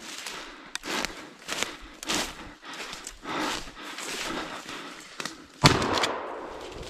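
Footsteps crunching and rustling through dry leaf litter and brush. About five and a half seconds in, a single shotgun shot at a wild boar rings out sharply and echoes briefly.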